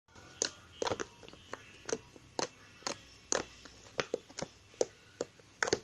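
Slime being poked and pressed by hand, giving sharp clicking pops about twice a second.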